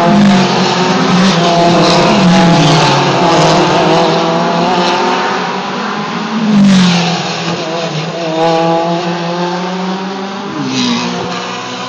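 Several prototype race cars, one after another, with their engines dropping and rising in pitch as they brake and downshift into the corner and accelerate out. There is a loud peak about six and a half seconds in.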